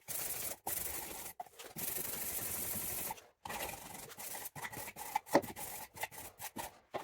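120-grit abrasive paper sanding a fibreglass repair on a car side skirt, taking off the high spots. A steady scrubbing noise that breaks off abruptly several times, with shorter, uneven strokes in the second half.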